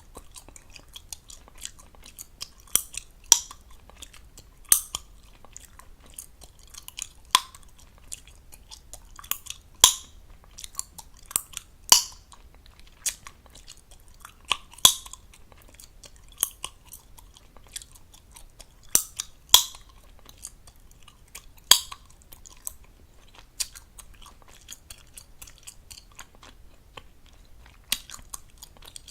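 Chewing gum being chewed fast, close to the microphone, with wet smacking and sharp gum pops and snaps every second or two at an uneven pace.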